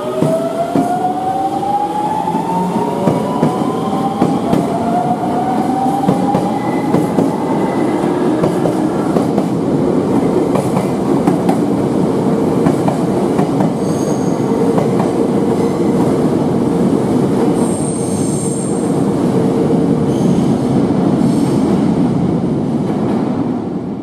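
Nankai electric train pulling out and accelerating past: the traction motors whine in several tones that rise in pitch over the first few seconds. Then the cars rumble past on the rails with a brief high wheel squeal about three quarters of the way through. The noise drops away near the end as the last car clears.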